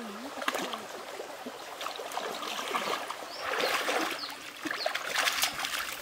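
Shallow stream water trickling over rocks, with feet wading and splashing through the ankle-deep water; the splashing swells about three and a half seconds in, then comes as several short splashes near the end.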